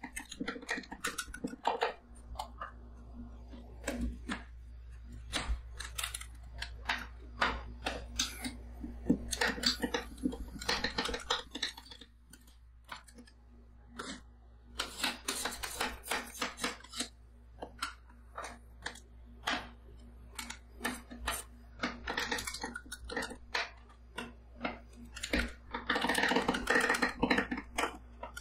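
Two metal spatulas chopping and scraping freezing whipped cream on the chilled steel plate of a rolled ice cream machine: irregular rapid metal clacks and scrapes that come in dense quick runs about halfway through and again near the end, over a steady low hum.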